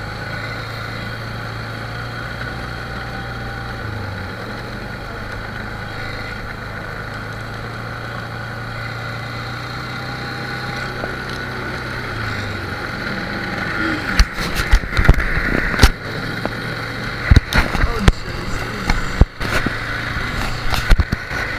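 ATV engine running steadily at a constant pitch, its note shifting slightly a few seconds in and again just past halfway. From about two-thirds of the way through, a run of loud, sharp knocks and thumps sounds over the engine.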